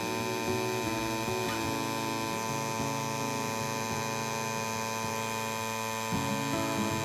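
Battery-powered portable air compressor (tire inflator) running steadily as it pumps up a car tire, a constant hum with many fixed tones. The tire pressure is nearing the inflator's 36 psi preset.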